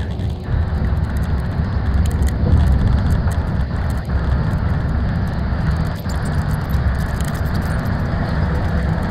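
Steady low rumble of a coach cruising at motorway speed, heard from inside the cabin: engine and tyre noise.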